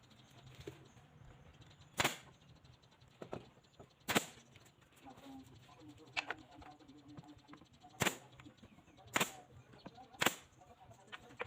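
Five loud, sharp strikes at irregular intervals of one to four seconds, with a few fainter knocks between them, from tool strikes in carpentry work on a wooden door frame.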